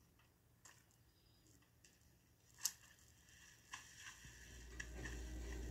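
Near silence in a quiet stretch of film soundtrack, with a few faint, short ticks, the loudest a little past halfway. A low hum fades in near the end.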